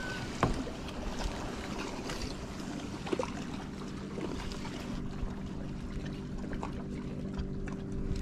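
Water lapping and trickling against a fishing kayak's hull over a steady low hum, with a few light clicks and knocks from handling a spinning rod and reel, about half a second and three seconds in.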